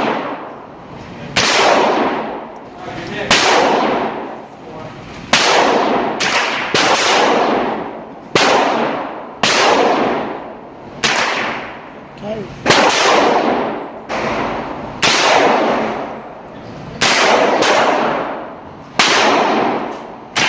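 Smith & Wesson M&P15-22 .22 LR semi-automatic rifle being fired in a slow string of single shots, about one every one to two seconds, with each shot trailing off in a long echo.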